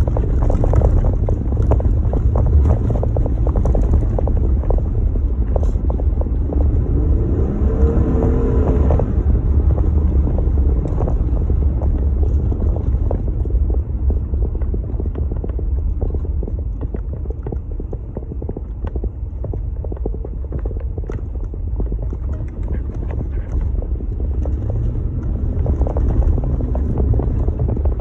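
Jeep Gladiator driving through snow: a steady low rumble of engine and tyres with small knocks and some wind, and a brief rise and fall in engine pitch about eight seconds in.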